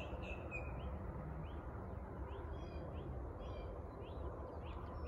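Birds chirping: a steady run of short, rising chirps, about two a second, over a faint low rumble.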